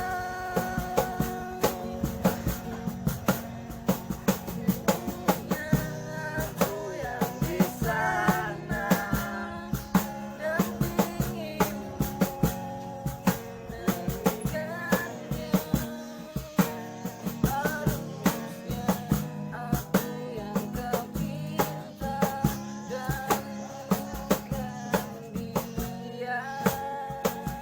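Pop-rock song: a sung melody over a steady drum-kit beat and bass line.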